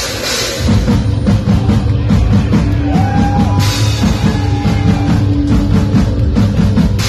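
Live nu-metal band playing loudly: a drum kit and percussion drive a heavy, steady beat under amplified rock music. There is a wash of cymbals at the start, and the full beat kicks in under a second in.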